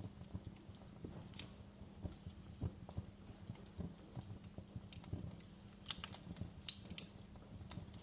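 Wood fire burning in a fireplace: irregular crackles and sharp pops over a low rumble of the flames, with a few louder snaps around two seconds in and near the end.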